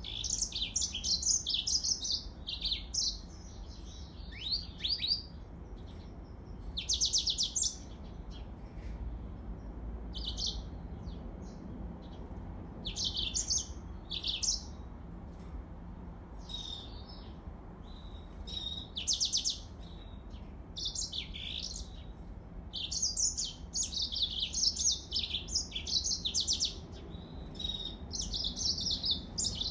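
Yellow-fronted canary singing in bouts of rapid, high twittering phrases broken by short pauses.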